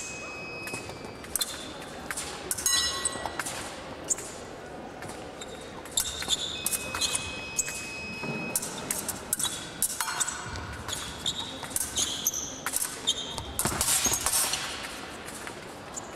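Fencing épée blades clicking and clashing, some strikes leaving a short metallic ring, over the thuds of fencers' feet on the piste in a reverberant hall. A steady high beep lasts about two seconds near the middle.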